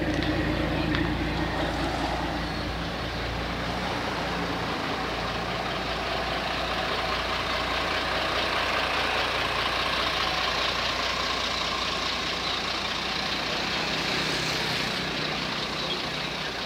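Large diesel truck engine idling steadily. Its low hum is strongest in the first few seconds.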